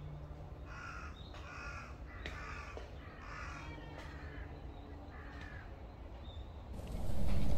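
A crow cawing, about six harsh calls spread over several seconds. Near the end a sudden loud low rumbling noise comes in.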